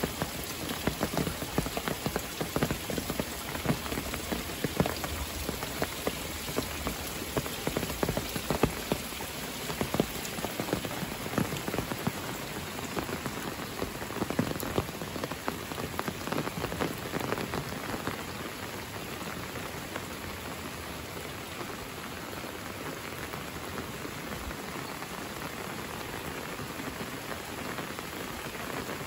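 Steady rain falling: a dense, even hiss with many close, sharp drop hits. The drop hits thin out about two-thirds of the way through, leaving a smoother steady hiss.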